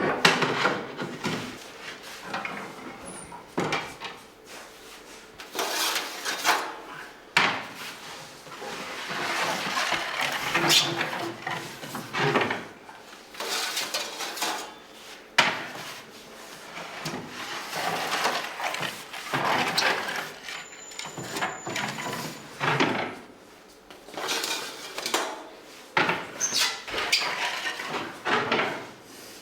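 Irregular knocks and clatter of bakery work, with wood and metal utensils and trays being handled and scraped, and some indistinct voices in between.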